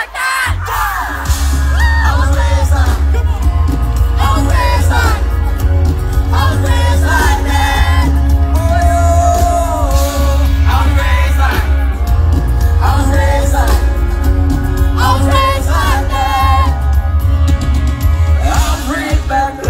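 Live band playing: a man singing lead over electric guitars, bass and drums, with the full band coming in heavily about a second in.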